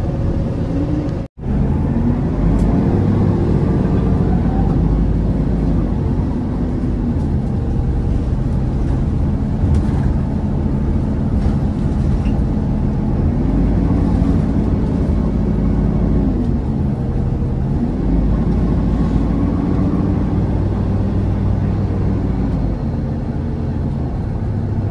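Engine and road noise heard inside the cabin of a moving city route bus, the engine note rising and falling several times as the bus speeds up and slows. The sound cuts out briefly about a second in.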